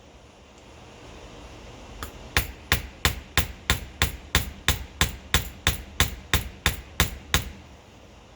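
Hammer blows driving a star nut down into the steerer tube of a bicycle suspension fork: a steady run of sharp strikes, about three a second, starting about two seconds in and stopping shortly before the end.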